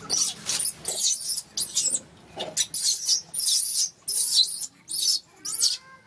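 Newborn macaque screaming: a rapid run of about ten shrill, high-pitched cries, roughly two a second, tailing off into a few softer gliding squeaks near the end.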